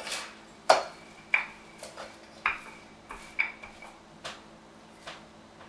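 Light knocks and clinks of kitchen items handled on a countertop: about seven separate taps, several with a brief ringing ping.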